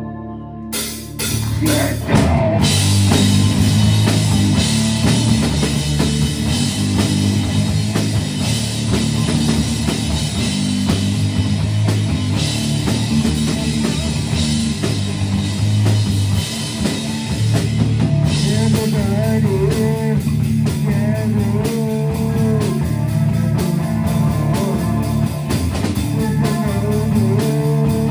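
Live rock band playing an original song: distorted electric guitars, bass guitar and drum kit crash in together about two seconds in after a lone ringing note, then keep a loud, driving groove. From about two-thirds through, a wavering sung line comes in over the band.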